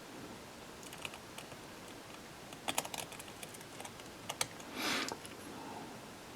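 Faint clicks and taps of a small screwdriver and tools on an iPhone's metal frame while the battery cover screws are being fitted. The clicks come in small clusters, with a short scrape about five seconds in.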